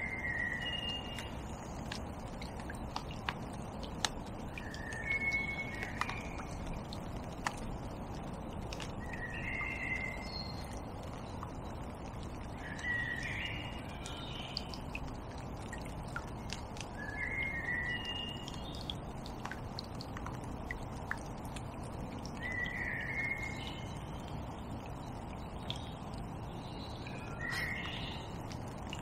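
A songbird repeating a short chirping phrase about every four to five seconds, over a steady low outdoor hiss with a few faint ticks.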